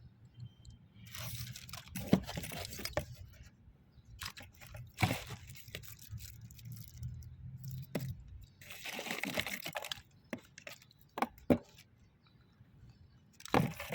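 Handling noise: several bursts of crinkling and crunching, with a few sharp clicks near the end, over a low steady hum that stops about two-thirds of the way through.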